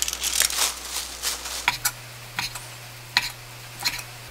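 Crinkly rustling of foil baking cups as food is pressed into a lunchbox. Then a kitchen knife slices through a roll onto a wooden cutting board, giving four sharp knocks spaced about half a second to a second apart.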